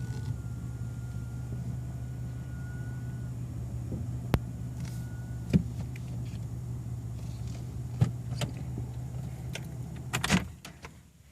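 A car engine idling with a low steady hum, under a flat high-pitched whine that stops about three seconds in and comes back briefly a couple of seconds later. Scattered sharp clicks and knocks follow, with a burst of clicks shortly before the engine shuts off near the end.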